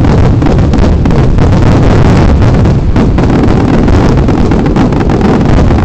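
Fireworks going off in a dense, continuous barrage: rapid overlapping bangs and crackle that merge into a steady, loud rumble near the top of the microphone's range.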